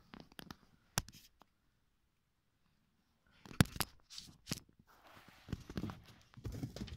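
Close-up rustling and scratching of Belgian giant rabbits shuffling among straw and wooden boards, with scattered sharp clicks and knocks. A hard click comes about a second in, then a short gap of near silence, then a sharp knock a little after halfway and busier rustling.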